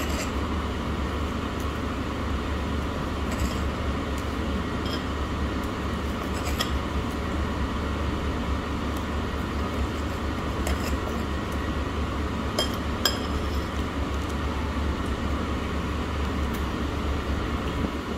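Scattered light clinks of tableware and cutlery against dishes, about eight over the stretch, over a steady low hum of room noise.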